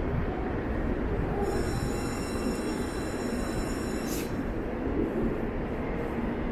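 Limited express train pulling out of a station: steady rumble of the running train, with thin high whining tones from about a second and a half in, cut off about four seconds in by a brief sharp high squeal.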